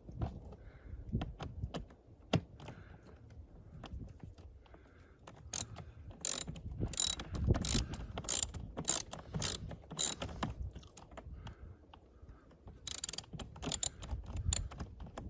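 Ratcheting hand tool clicking in short strokes while driving the retaining screws of a replacement interior door handle piece. A run of about nine sharp clicks comes in the middle, then a quicker cluster near the end, with low handling noise between.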